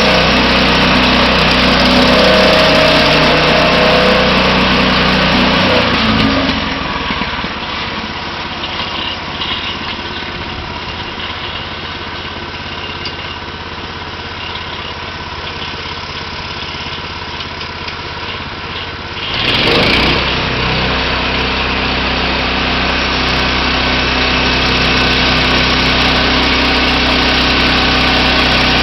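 Portable band sawmill's small engine running steadily. For a long stretch in the middle it is quieter, then a short loud rush about two-thirds of the way through brings the full engine sound back.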